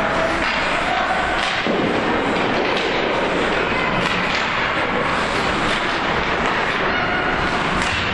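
Ice-hockey rink during play: a steady din of spectators shouting, with sharp knocks of sticks and puck and thuds against the boards every second or two.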